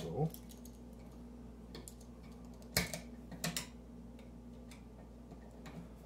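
Scattered small clicks and taps of a screwdriver against a 3-way light switch's metal terminal screws as wires are fastened on, a few separate clicks with the sharpest about three seconds in, over a low steady hum.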